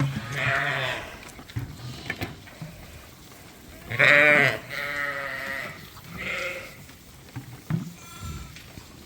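Lambs bleating: several wavering calls, the loudest and longest about four seconds in.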